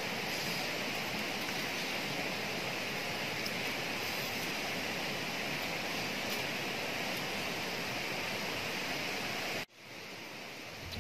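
Steady rushing of a stream flowing over rocks, with a few faint ticks; near the end it drops abruptly to a quieter hiss.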